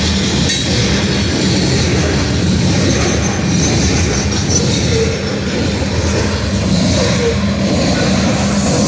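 Steel coal hopper cars of a long freight train rolling past close by: a loud, steady rumble of wheels on rail.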